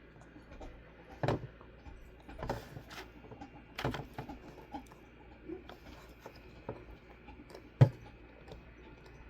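Light, scattered clicks and small handling noises of a snap-together plastic model kit figure and its parts being handled, with one sharper click near the end.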